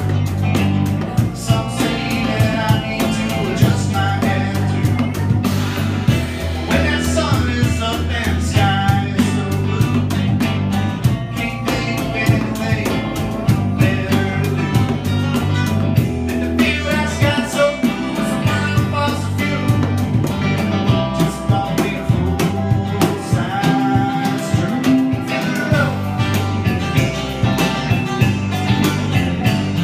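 Live band playing a song: a man singing lead over electric guitar, electric bass and a box drum (cajon) with a cymbal.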